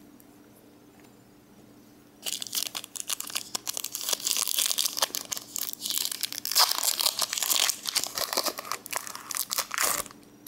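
A foil booster pack of Pokémon cards being crinkled and torn open. The dense crackling starts about two seconds in and runs for about eight seconds.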